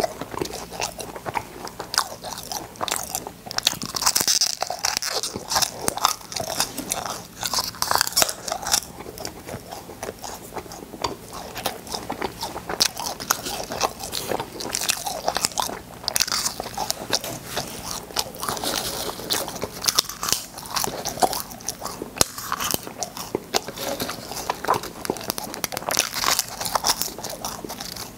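Close-miked crunching and chewing of shell-shaped cola space candies, with many sharp crunches in quick succession as the candies break between the teeth.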